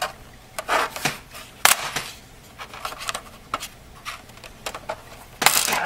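Laptop's plastic bottom cover being lifted off by hand: a few sharp, irregular clicks and snaps as it is pried up, then a longer scrape near the end as it comes loose.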